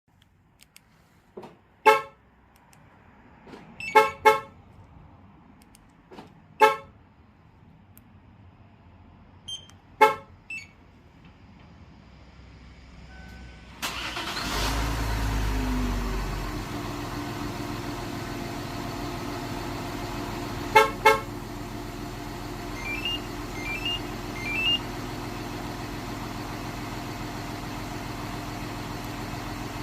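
Kia Mohave's horn giving several short chirps, some in quick pairs, as the aftermarket Magicar remote starter-alarm takes commands. About halfway through, the engine is remote-started: it cranks, catches and settles into a steady idle. Two more quick horn chirps sound over the idle.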